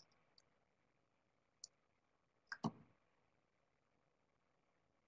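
Near silence, broken by a few faint clicks and one louder click with a soft knock about two and a half seconds in.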